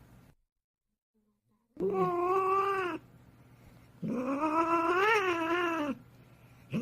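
A domestic cat giving two long, drawn-out meows, the second longer, with a wavering pitch that rises to a peak in the middle.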